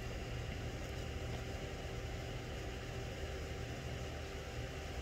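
Steady low hum with faint hiss, unchanging throughout: room tone with no distinct events.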